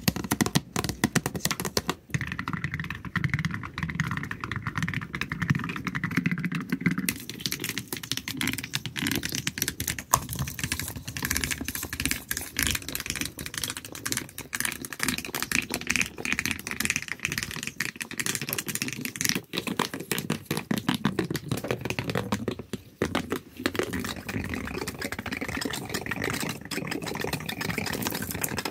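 Backs of fingernails tapping and scratching rapidly on an object, a dense run of fast clicks, briefly pausing about three-quarters of the way through.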